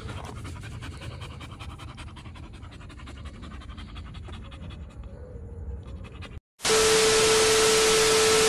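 A tired bull terrier panting steadily and rapidly. About six and a half seconds in it cuts off and gives way to a loud TV-static hiss with a steady beep tone, a glitch transition effect.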